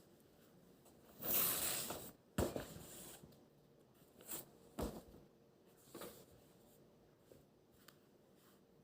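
Rustling and handling sounds at a study desk: a loud rustle about a second in, a sharp knock just after it, then a few short, softer rustles.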